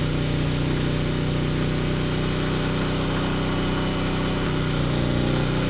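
Champion 4000-watt digital hybrid inverter generator, an open-frame engine unit, running at a steady pitch under the load of an RV air conditioner and toaster.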